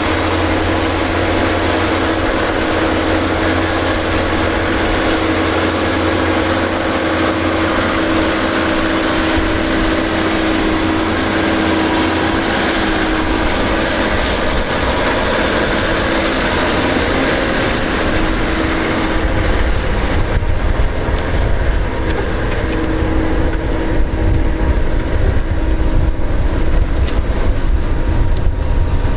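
A large machine's engine running steadily, with a steady whine over it. About twenty seconds in, a heavier, uneven low rumble takes over.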